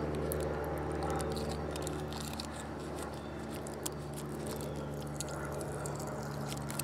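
Light clicks, scrapes and crinkles as small carburetor rebuild-kit parts and their plastic packaging are handled, over a steady low hum.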